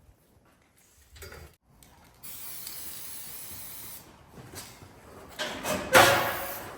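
A steady spraying hiss for about two seconds, then a few seconds later a louder, shorter rush of spray that fades away.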